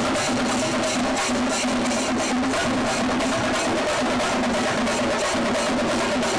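Drum-led music: fast, dense drumming at a steady beat with a held tone beneath it, running without a break.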